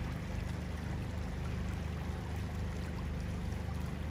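Shallow stream flowing fast over a stony bed: a steady rush of running water.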